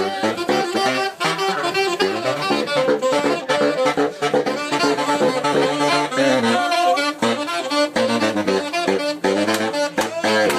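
A saxophone and a baritone saxophone playing fast jazzy lines together. The baritone holds a long low note near the middle while the other horn plays higher notes over it.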